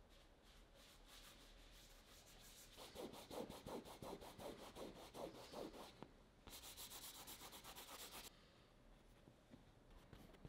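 Fingertips rubbing oil paint into a stretched canvas in quick, faint back-and-forth strokes, about four or five a second, followed by a steadier, continuous rub lasting a couple of seconds.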